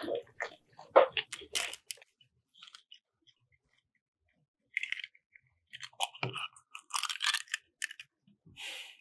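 Close eating sounds, chewing and crunching with short clicks, in two spells with a quiet gap of about two seconds between them, from someone eating the finished souffle omelette.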